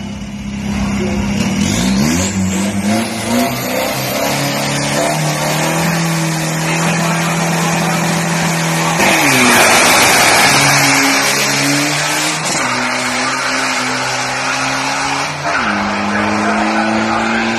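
Turbo-diesel SUV engine revving at the drag-strip start line and holding its revs. About halfway through it launches with a sudden loud burst of tyre squeal, and the engine runs on at rising revs as it pulls away.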